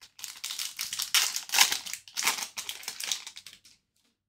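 The foil wrapper of an Upper Deck Series 2 hockey card pack being torn open and crumpled by hand. It makes a run of loud crackling rustles with several sharper crinkles, then stops shortly before the end.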